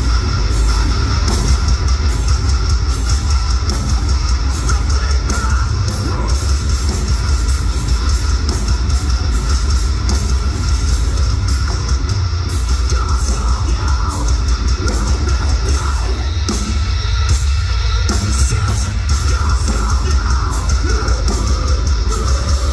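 Metalcore band playing live: heavily distorted electric guitars and bass over a drum kit hitting fast and hard, with a booming low end, and vocals in the mix.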